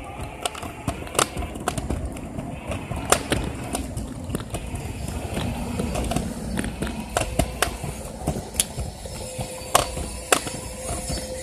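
Small scooter wheels rolling on a concrete sidewalk: a steady low rumble with sharp clicks and knocks at irregular intervals. A faint steady hum comes in near the end.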